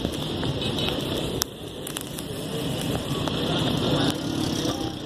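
Outdoor traffic ambience: vehicles running on waterlogged roads below, with scattered crackling and clicking noise on the phone microphone.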